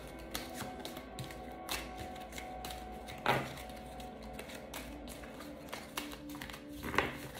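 Soft background music with sustained notes, over a few light taps and rustles of oracle cards being handled. The clearest tap comes about three seconds in and another near the end.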